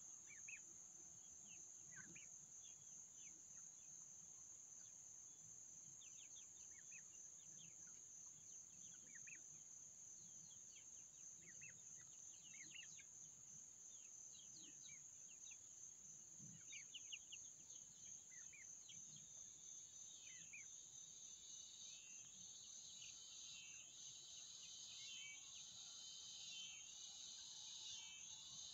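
Faint outdoor background of a steady high-pitched insect chorus, with scattered short chirps from young turkeys. A pulsing insect trill joins about two-thirds of the way in.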